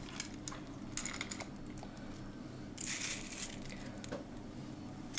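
Faint clicks and a brief rustle of soaked wood smoking chips being handled in a metal mesh strainer: a few light ticks about a second in, and a short rustle around three seconds in.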